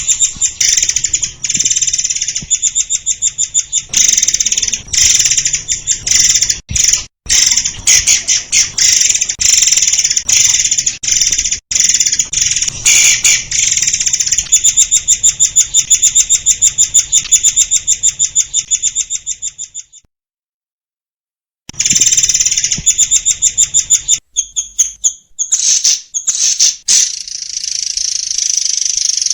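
Murai air songbird singing dense, rapid trains of high chirping notes. The song cuts out completely for under two seconds about two-thirds through. It then comes back sparser and ends in a continuous high trill.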